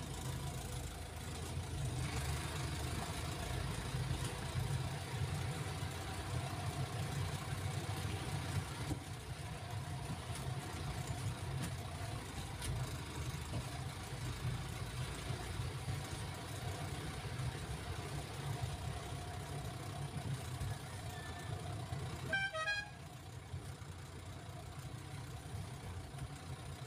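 Passenger jeepney's diesel engine running steadily with a low rumble as it creeps along a wet dirt lane, heard from the driver's seat. About 22 seconds in, a short horn toot, after which the engine quiets down.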